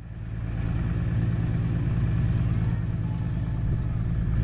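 Piston engine and propeller of a small aerobatic biplane running steadily at low power while it taxis. The sound rises in level over the first second, then holds steady.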